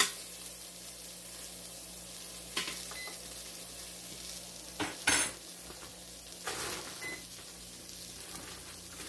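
Onions sizzling faintly in an electric pressure cooker's inner pot on sauté. A sharp knock of a utensil on the pot comes right at the start, and a plastic bag rustles in a few short bursts, loudest about five seconds in.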